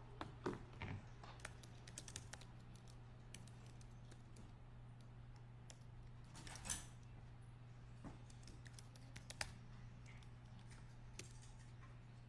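Faint, irregular clicks and taps of fingers working a device, loudest about half a second in and again a little past halfway, over a steady low hum; otherwise near silence.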